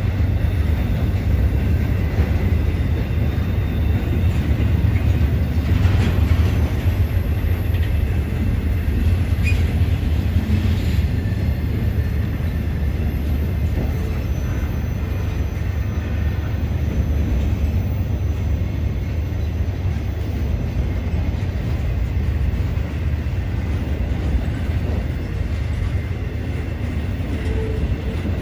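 Intermodal freight train cars loaded with highway trailers rolling past: a steady low rumble of wheels on rail, with a few brief metallic clanks about six and ten seconds in.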